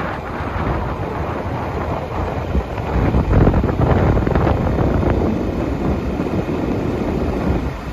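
Wind buffeting the microphone over the low rumble of road travel, growing louder for a couple of seconds about three seconds in.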